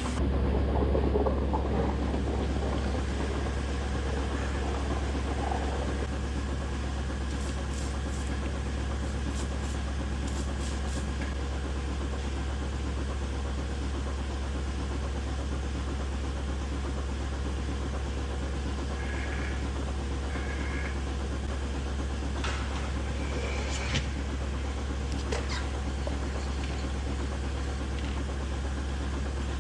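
Milking-parlour machinery running with a steady low hum, with a few light clicks and clanks about a quarter of the way in and again past the middle.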